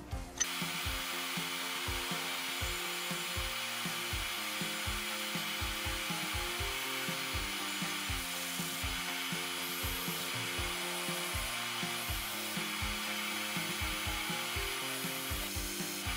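A hole saw spun by a drill in a tube notcher, cutting a notch into aluminum tube: a steady grinding hiss that starts about half a second in.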